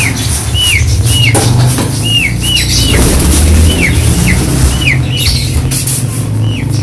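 A small bird chirping again and again in short downward-sliding chirps, about two a second, over a loud steady low drone, with a few sharp knocks.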